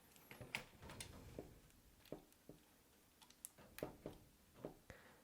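Faint, irregular small clicks and light taps, about a dozen short ticks, from hands handling parts and cabling inside a small computer case.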